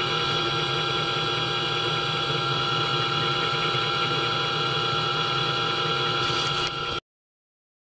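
Mini-lathe's electric drive motor running steadily, a hum with several steady whining tones, cutting off suddenly near the end. The drive is at fault: the owner says the spindle doesn't turn and the drive is slipping, though the gears are not stripped.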